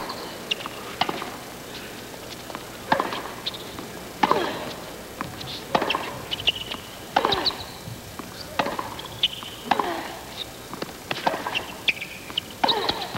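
Tennis rally on a hard court: the ball is struck by rackets and bounces in turn, a sharp knock about every second to second and a half, with short high shoe squeaks between the shots over a murmuring crowd.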